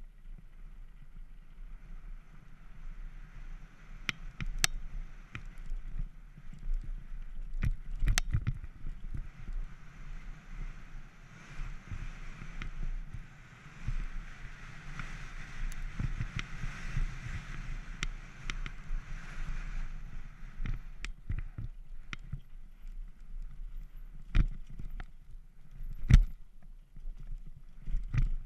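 Downhill mountain bike descending a dirt trail at speed: a steady rushing of tyres and air that swells through the middle, with frequent sharp knocks and rattles as the bike hits bumps and roots, one hard knock standing out near the end.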